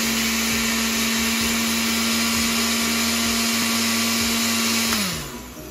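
Countertop blender running steadily, blending a margarita with ice: a constant motor hum under a wide rushing whir. About five seconds in it is switched off and the motor winds down, its hum dropping in pitch.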